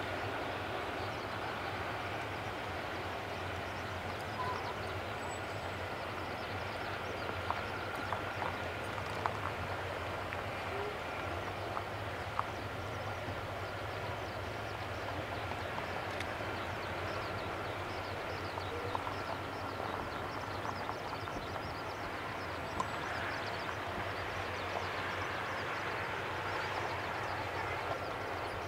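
Distant Boeing 747-400 freighter's jet engines at taxi power: a steady rumble with a faint high whine, broken by a few faint clicks.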